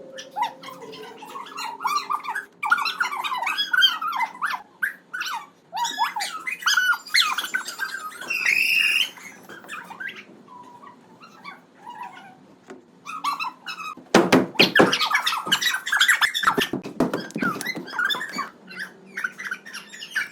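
Dog-like whimpers, yips and squeaky whines, many short calls rising and falling in pitch, with a louder, rougher outburst of about three seconds two-thirds of the way through.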